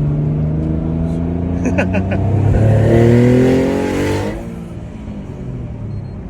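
Twin-turbo Infiniti G35 V6 accelerating, its engine note rising for about a second and a half before dropping off suddenly a little past four seconds in as the throttle is lifted.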